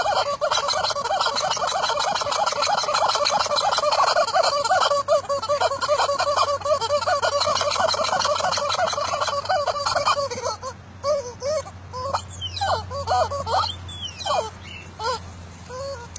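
Squeaky rubber duck toy squeaked rapidly and continuously, with a hiss of air. From about ten seconds in it gives separate squeaks with short gaps between them.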